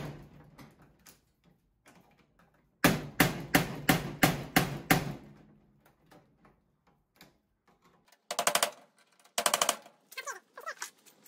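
Hammer tapping a metal tool set in the lock of an old Coca-Cola vending machine: about eight sharp metallic strikes, about three a second, to enlarge the lock's small hole so a screw will thread in. Two short, fast rattles follow near the end.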